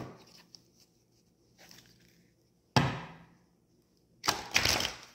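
A few sharp knocks on a hard surface: a single one about three seconds in, then a quick cluster of knocks near the end, each dying away fast.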